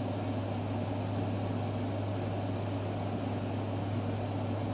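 Steady low hum with a faint, even hiss that does not change: background room noise.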